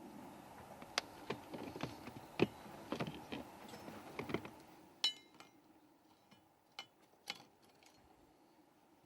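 Light metallic clicks and clinks of metal parts being handled, over a faint steady hum; the clicking thins out to a few isolated ticks about five seconds in.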